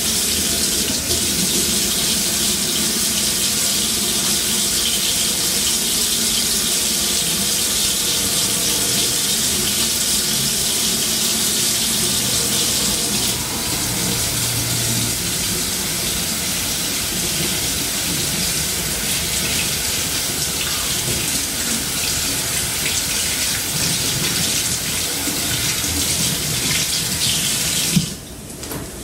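Kitchen sink tap running steadily as hands are washed under it, the hiss dipping slightly about halfway through and then cutting off abruptly near the end as the tap is shut.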